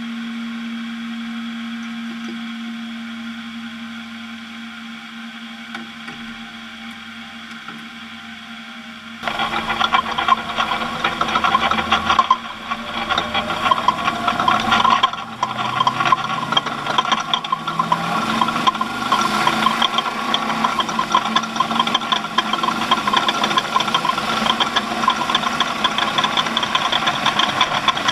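A steady hum, then about nine seconds in a vehicle's engine sound comes in suddenly and loudly, running with a heavy rattle and rising and falling in pitch.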